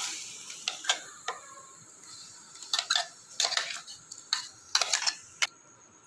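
A spoon clinking and scraping against a mixer-grinder jar in short, irregular bursts as coarsely ground sweet corn is emptied into a kadai.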